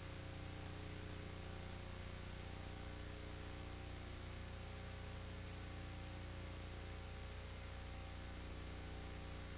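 Faint, steady electrical hum and hiss with no programme sound, the background noise of a VHS tape recording.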